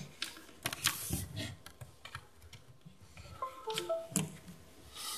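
Laptop keyboard typing: irregular key taps and clicks. A brief run of stepping tones sounds about three and a half seconds in.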